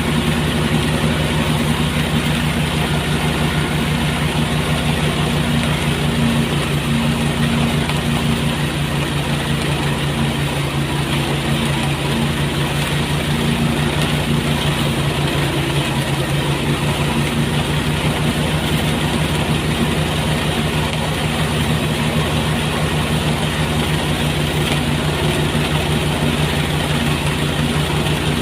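Motorised rice threshing machine running steadily, a constant loud engine drone without change.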